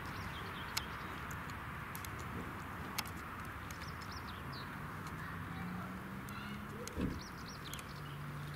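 Open-air ambience: small birds chirp now and then over a steady background rush, with a few sharp clicks. A low steady hum comes in about halfway through, and there is a soft thump near the end.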